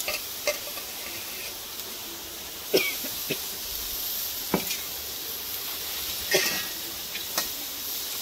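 Chopped vegetables tipped from a steel pot into a metal kadai, with several sharp knocks of metal on metal over a faint steady hiss from the pan.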